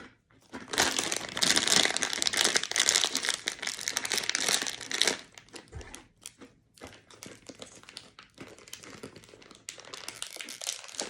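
Plastic snack packaging being handled and crinkled, loud and continuous for about four seconds, then quieter, scattered crinkles.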